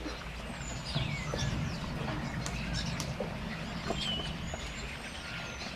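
Birds chirping, a few short falling whistles, over soft clicks from a litter of five-week-old puppies eating from a shared dish, with a low rumble swelling about a second in.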